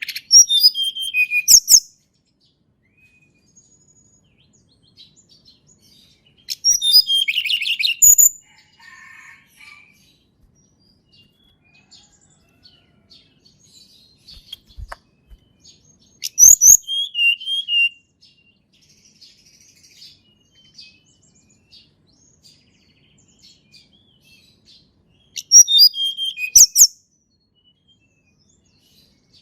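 Tledekan gunung (a blue flycatcher) singing: four short phrases of quick, high whistled notes that fall in pitch, each about one and a half to two seconds long, with long pauses between them.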